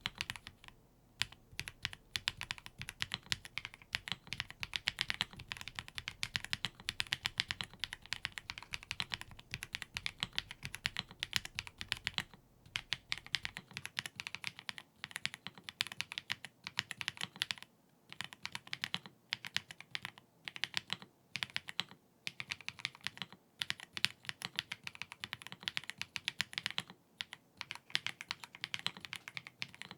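Typing on a Keychron C3 Pro tenkeyless mechanical keyboard: fast, steady runs of keystrokes with brief pauses between bursts.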